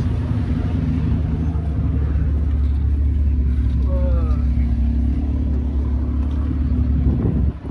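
Nissan GT-R's twin-turbo V6 idling: a steady low rumble that drops away about seven and a half seconds in.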